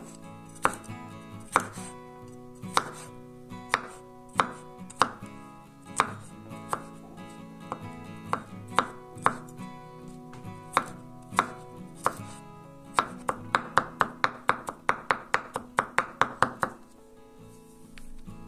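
Chef's knife chopping garlic cloves on a wooden cutting board: single sharp knocks about once a second, then a quick run of about five chops a second near the end that stops suddenly.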